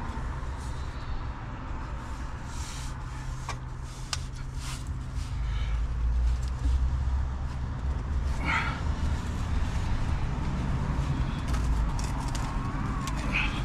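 An engine running steadily with a low hum, getting louder about halfway through, with scattered knocks and short squeaks over it.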